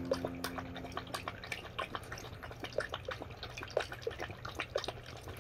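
A basenji licking and lapping wet food from a ceramic bowl: irregular wet smacks and tongue clicks, a few each second, as it cleans out the bowl.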